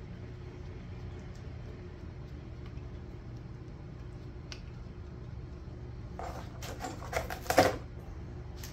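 Steady hum of a shop fan, then a few light metallic clinks about six to eight seconds in as oiled cylinder-head bolts are handled and set into the head.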